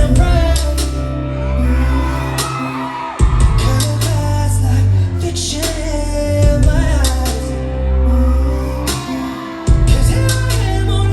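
Live pop song played loud through a concert hall's sound system: a heavy bass line and beat with singing over it. Twice the bass drops out for a moment and comes back hard.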